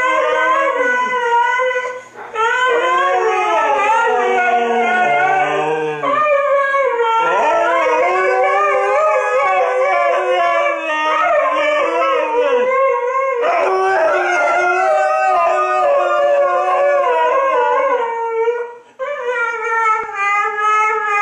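Two Siberian huskies howling together in long, wavering, overlapping howls, with brief breaks about two seconds in and again near the end.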